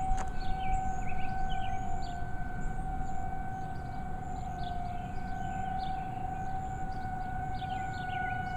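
Civil-defense tornado siren sounding a steady tone for its monthly test, holding one pitch with a slight waver. Many short high chirps sound over it.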